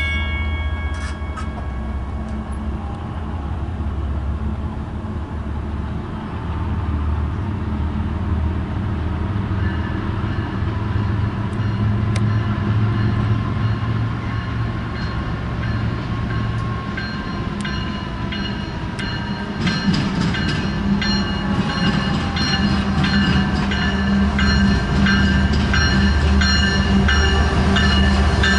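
Diesel locomotives of an approaching BNSF coal train, led by a GE ES44C4, rumbling steadily and growing louder as the train draws near. From about two-thirds of the way in, a higher ringing with rapid ticks joins and builds toward the end.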